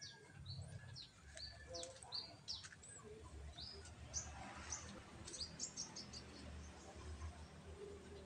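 Birds chirping: many short, high chirps in quick succession, some rising and some falling, over a low steady hum.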